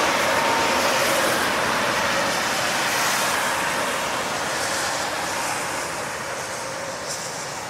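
Airliner engines running, a steady rushing roar with a faint steady whine that slowly fades.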